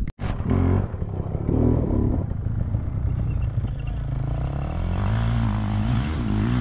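Dirt bike engine running on an off-road trail, with rattling from the bike over rough ground, gradually getting louder. The sound drops out for an instant at the very start.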